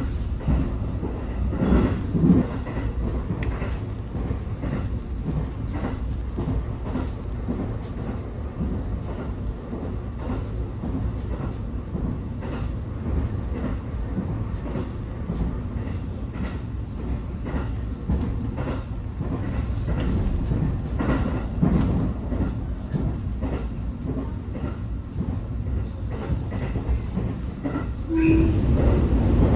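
Train running on rails, heard from inside the passenger car: a steady low rumble with the wheels clicking over rail joints.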